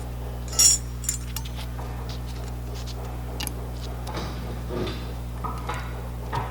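Metal brake-pad hardware clips being pressed into a caliper bracket: one sharp metallic snap about half a second in as a clip pops into place, then a few lighter clinks of metal parts, over a steady low hum.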